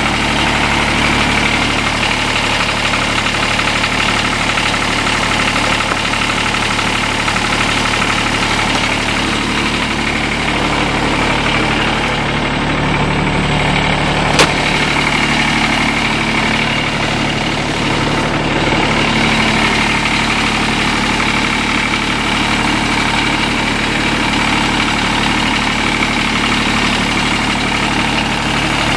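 Kubota D722 three-cylinder diesel in a Kubota TG1860 riding mower running steadily, warming up just after a cold start. A single sharp click about halfway through.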